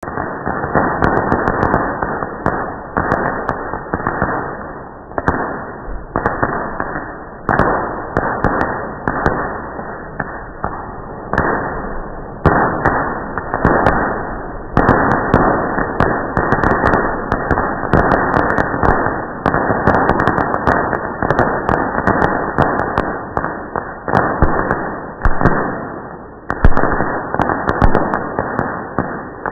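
Fireworks going off in quick succession, slowed down so that each bang is drawn out into a low rush that rises suddenly and fades over a second or so before the next.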